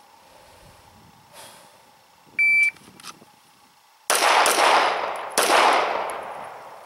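A shot timer's start beep, then three 9mm shots from a Smith & Wesson M&P Pro Series pistol drawn from the holster: a quick pair and a third about a second later, in a two-to-the-body, one-to-the-head drill. The reports echo and fade out slowly.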